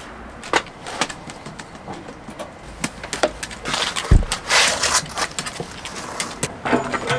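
Scattered clicks and knocks of gear being handled in the bare metal cargo area of a van, with a dull thump about four seconds in as someone climbs onto the floor, followed by a brief rustle.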